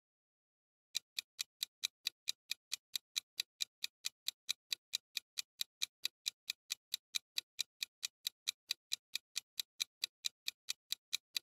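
Countdown-timer sound effect: a clock ticking fast and evenly, about four ticks a second, starting about a second in.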